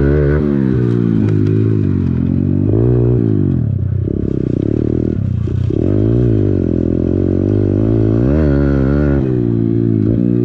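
Pit bike's small four-stroke engine being ridden, the revs rising and falling several times with a longer high-rev stretch in the middle.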